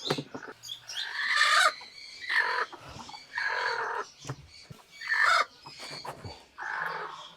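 Chickens clucking, a run of calls coming about once a second.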